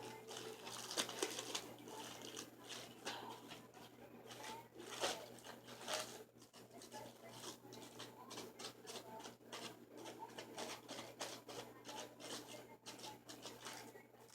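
Hands squishing and stretching a soft, slightly sticky slime, giving quiet irregular wet clicks and crackles.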